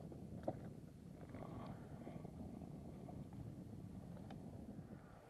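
Faint low wind rumble on the microphone, with a few faint clicks.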